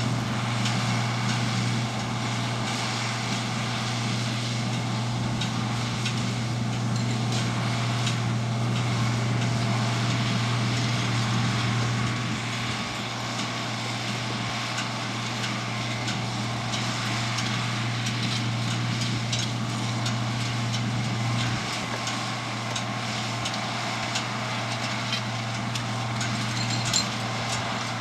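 Tractor engine running steadily under load, with the hay baler working.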